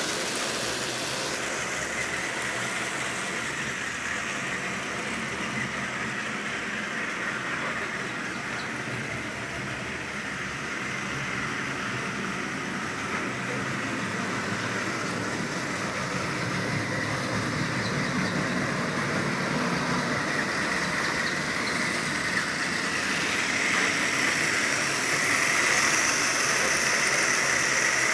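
H0-scale model train, a BR55 steam locomotive model hauling armoured-train wagons, running on the track: a steady whirr of its electric motor with the rattle of wheels on the rails. It grows louder near the end as the train passes close.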